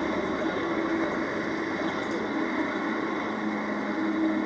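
A steady, muffled rushing noise with a faint low hum, cut off above the mid range, typical of an old videotape soundtrack played back and re-recorded.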